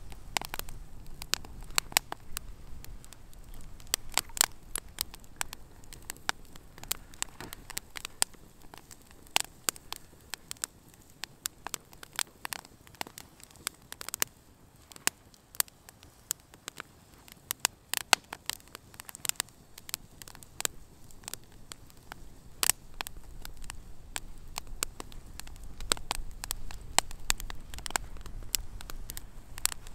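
Open wood campfire crackling, with many irregular sharp pops and a low rumble of the flames building in the last few seconds.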